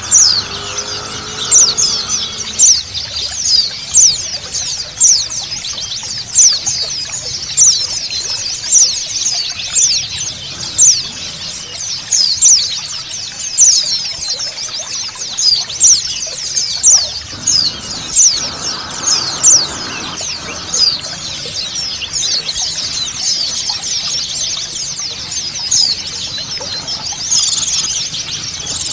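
A flock of white-eyes (pleci) chirping rapidly and without pause: high, thin, quick notes, with a sharper, louder chirp about once a second. Running water flows steadily underneath.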